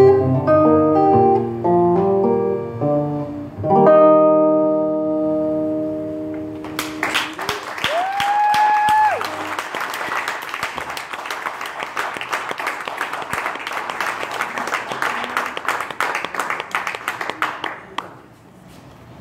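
Acoustic guitar closing a song with picked notes and a final chord that rings out. About seven seconds in the audience starts applauding, with one rising whistle, and the applause dies away near the end.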